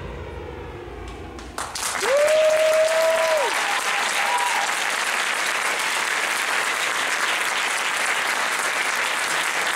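The last of the music dies away, then about a second and a half in a theatre audience breaks into loud applause that keeps going steadily. Just after the clapping starts, one long held shout rises out of the crowd.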